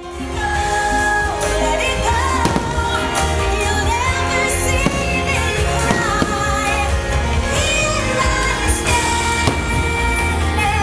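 A fireworks show's music soundtrack with singing over loudspeakers, with fireworks bangs scattered through it and a heavy low rumble.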